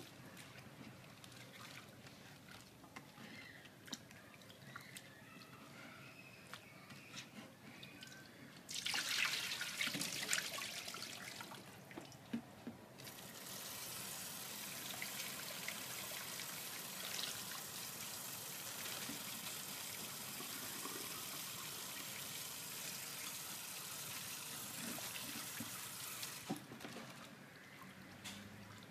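Water from a kitchen tap splashing into a plastic bowl of garlic chive stems as they are washed by hand. Quiet handling and dripping at first, loud splashing for a few seconds about nine seconds in, then the tap runs steadily until it stops near the end.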